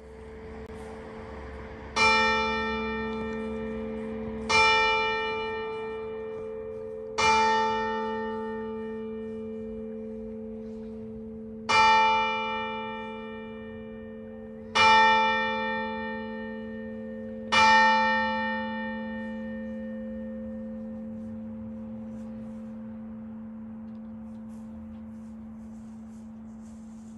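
A church bell struck six times at uneven intervals, each strike ringing on and slowly dying away, its low hum lingering long after the last stroke.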